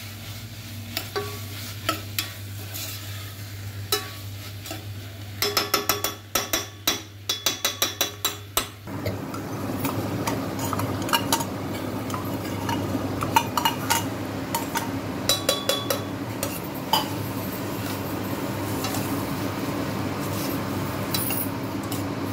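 A steel ladle stirring and scraping tomato-and-pea masala in an open pressure cooker, clinking against the pot. There is a quick run of clinks about six seconds in; from about nine seconds a steady sizzle of the frying masala continues under the occasional clink.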